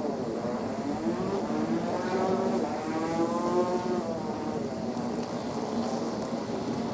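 A motor vehicle engine running, its pitch dipping, then rising and falling again over a few seconds, under a steady lower hum.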